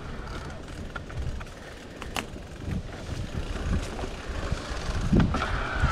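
Mountain bike ridden along a dirt trail: a steady low rumble of tyres and wind on the microphone, with scattered clicks and rattles from the bike. Near the end a thin high whine comes in.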